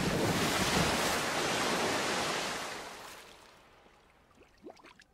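A large splash into a pool of water: a sudden rush of churning water that dies away over about three seconds. A few faint ticks near the end.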